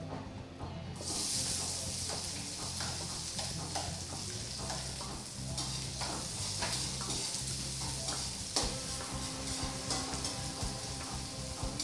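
Chopped onion dropped into hot cooking oil in a wok, sizzling with a steady hiss that starts about a second in, while a spatula stirs it and clicks and scrapes against the wok.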